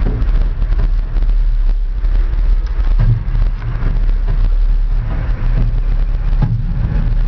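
Steady low rumble inside a cable car gondola moving along its cable just after leaving the station, swelling louder a few times.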